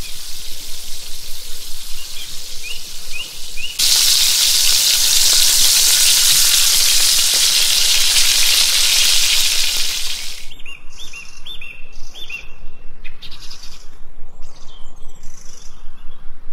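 Frying sizzle sound effect laid over pretend cooking. It swells to a loud hiss about four seconds in and drops back around ten seconds, with birds chirping in the background.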